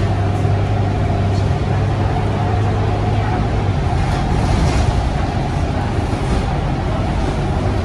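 Scania K230UB bus's five-cylinder diesel engine and drivetrain running, heard from inside the passenger cabin. A steady low engine drone eases off about four seconds in.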